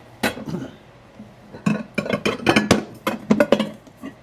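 Ceramic Corningware-type bowls clinking and knocking against each other and the shelf as they are handled: one knock about a quarter of a second in, then a quick run of clinks and knocks in the middle.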